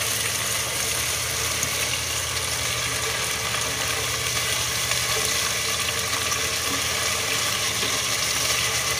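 Sliced onions with garlic and ginger paste sizzling steadily in hot oil in a pot, stirred with a wooden spatula, over a steady low hum.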